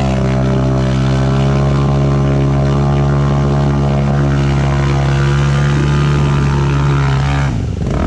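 Dirt bike engine held at high, steady revs, its rear wheel spinning in deep mud while the stuck bike is pushed free. The revs drop briefly near the end, then rise again.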